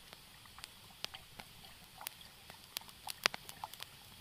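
Campfire of burning spruce branches crackling: scattered, irregular sharp pops, one louder about three seconds in.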